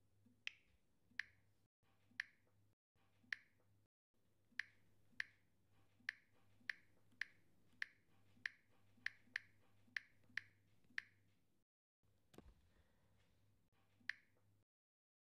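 A run of sharp, light clicks from a smartphone being tapped, one or two a second at an uneven pace, over a faint low hum, with a soft bump near the end.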